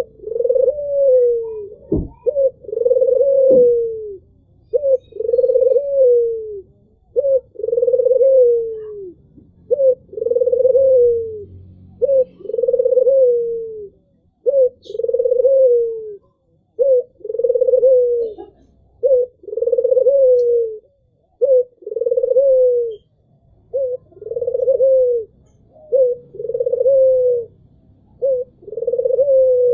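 White (albino) Barbary dove, the Indonesian puter, cooing over and over. Each coo is a short note followed by a longer note that arches and falls, and the phrase repeats about every one and a half to two seconds.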